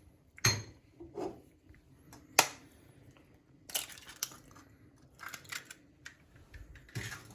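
Eggs being cracked on the rim of a bowl: a few sharp taps and crackles of eggshell.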